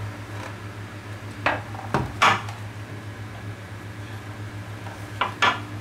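A few sharp clacks and knocks of hard plastic and metal as a plug is worked into a voltage transformer's socket, two or three together about a second and a half in and two more near the end, over a steady low hum.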